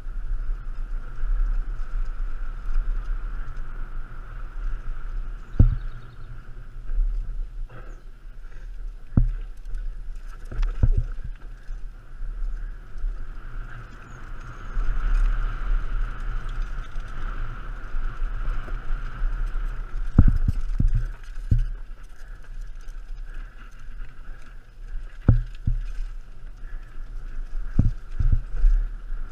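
Mountain bike descending a dirt trail: tyres rolling over dirt with a steady whir and low wind rumble on the helmet camera, broken by several sharp knocks and rattles as the bike hits bumps.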